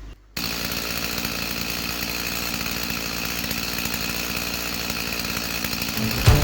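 Chainsaw engine running steadily at a high, even pitch, starting abruptly about a third of a second in. Music comes in near the end.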